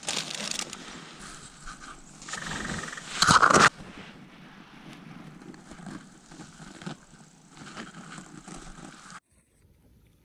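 Rustling and scraping close to the microphone, the sound of clothing and gear being handled. The loudest scrape comes a little over three seconds in, and the sound cuts off sharply about nine seconds in.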